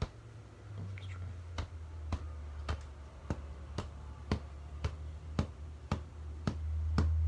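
Wooden stick tapping on a stack of soft felt sheets, about two taps a second, each a short muffled tap that is not very loud, over a steady low hum.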